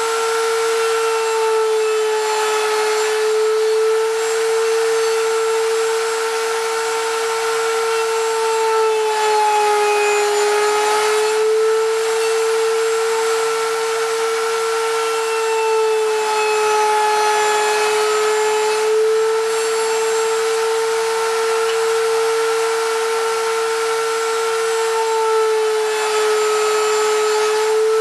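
Router mounted under a wooden router table, running at full speed with a loud, steady high whine. Its pitch dips slightly three times as the bit cuts into the wooden strip fed across the table.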